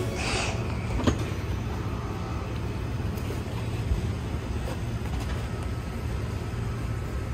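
Steady low rumble of outdoor background noise, with a short knock about a second in and a fainter one near four seconds.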